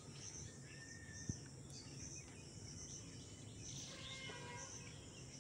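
Faint outdoor ambience with an insect chirping, a short high chirp repeating about once a second. A single sharp click comes about a second in.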